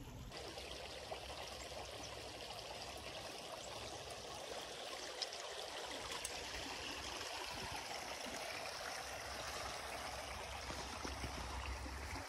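Small creek's water running and trickling steadily.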